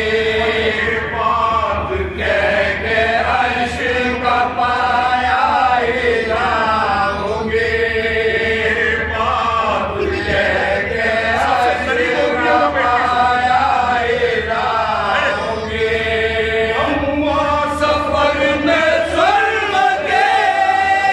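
A group of men chanting a marsiya, a Shia mourning elegy, together in slow, drawn-out melodic lines, sung into a microphone.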